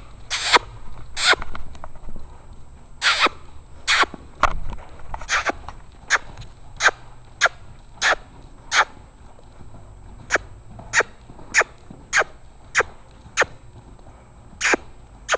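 A handler's repeated kissing smacks, a cue urging the horse to move faster. About twenty short, sharp smacks come every half second to second, with a brief pause past the middle.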